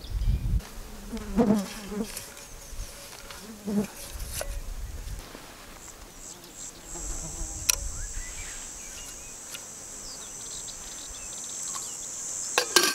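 An insect's high, steady buzzing trill starts about halfway through and runs on, over light handling noises, with a few sharp clicks near the end as a metal lid is set on a small steel pot.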